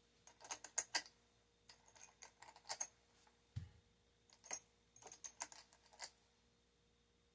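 Light clicking and clinking of small hard parts being handled on a workbench, in several quick clusters, with a soft low thump about three and a half seconds in.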